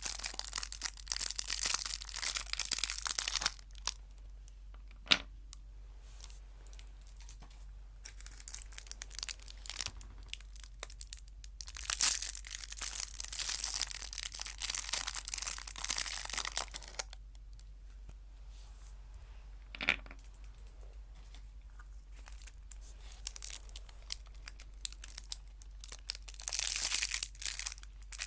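A wrapper being crinkled and torn close to the microphone: three bouts of dense crinkling with quieter pauses between them, and a single sharp click around five seconds in and another around twenty.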